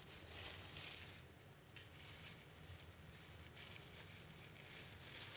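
Faint, steady patter of heavy rain, with a soft rustle of banana leaf and plastic gloves as a packet is folded.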